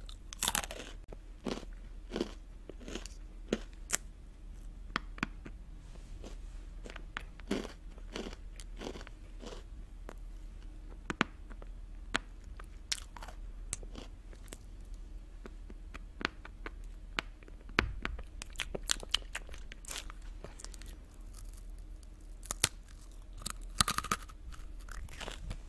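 Close-miked crunching and chewing of small hard salted pretzels, with irregular crisp cracks as pieces are bitten and broken off.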